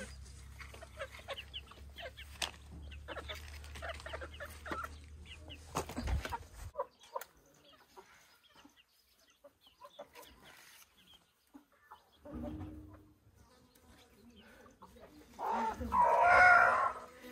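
Domestic chickens clucking in short, scattered calls, with a loud, drawn-out call near the end.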